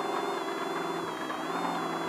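Off-road race car's engine running at steady revs while under way: a buzzing drone over a rush of noise.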